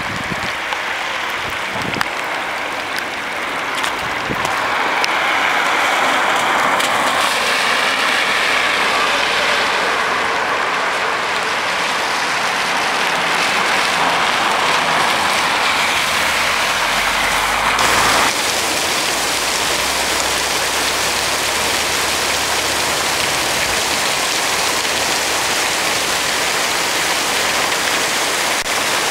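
Torrential rain pouring down and splashing on wet ground, with cars' tyres swishing through standing floodwater on the road. About two-thirds of the way in it becomes a steady even hiss of heavy rain.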